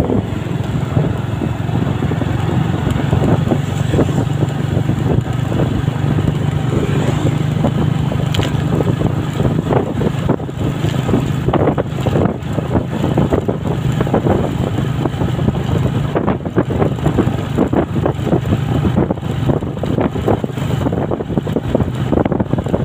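Motorcycle engine running steadily at cruising speed, heard under loud wind rush and buffeting on the microphone.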